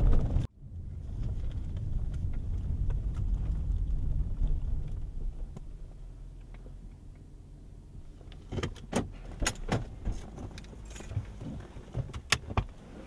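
Car cabin noise: a steady low engine and road rumble as the car drives up and comes to a stop, dying down after about six seconds. Then a quick run of sharp clicks and knocks from things handled inside the stopped car.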